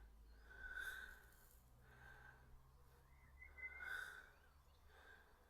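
Near silence, with two faint breaths close to the microphone, about three seconds apart.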